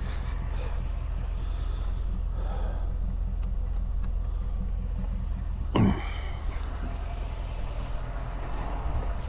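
Ford F-150 pickup idling with a steady low hum, and a single sharp thump about six seconds in.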